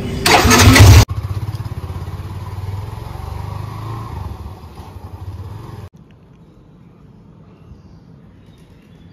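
A motor vehicle's engine running with a fast, even pulse. It is loudest in the first second, then steady, and drops off abruptly about six seconds in to faint background noise.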